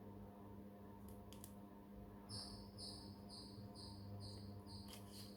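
Faint high chirping that starts about two seconds in and repeats about twice a second, over a low steady hum, with a few faint clicks.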